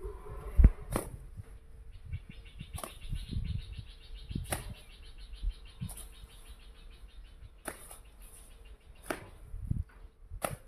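Baby elephant swishing its tail as it lies in sand: a sharp swish or slap about every one to two seconds. A fast ticking trill runs in the background for a few seconds in the middle.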